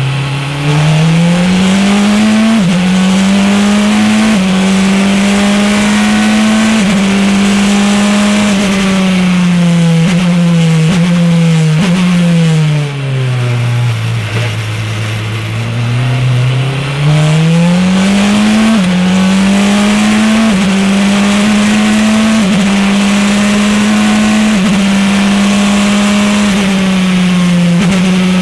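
Praga R1T race car's turbocharged four-cylinder engine heard from inside the cockpit. It pulls hard up through the gears with several quick upshifts, then comes off the throttle and downshifts for a slow corner. After a few seconds low in the revs it accelerates again through a run of upshifts.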